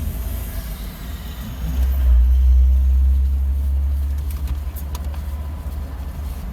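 Low, steady car rumble heard inside a car cabin, swelling for a couple of seconds about two seconds in, with a few faint clicks later on.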